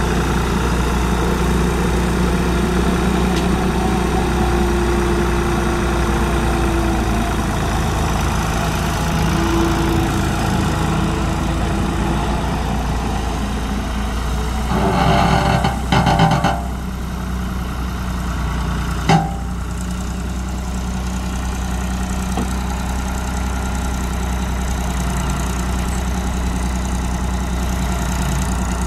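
Ford 4610 tractor's three-cylinder engine running steadily as the tractor drives. About halfway through there is a brief louder rattling burst, and a sharp knock follows a few seconds later.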